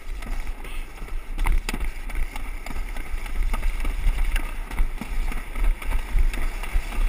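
Alpine slide sled running fast down the track, with a constant rumble, scattered knocks from the sled on the track, and wind buffeting the camera microphone.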